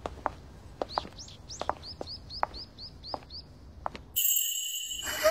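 Footsteps of two people walking, with a small bird chirping a quick run of short falling notes, about four a second. About four seconds in, a sudden loud high ringing with a hiss cuts in, the loudest sound.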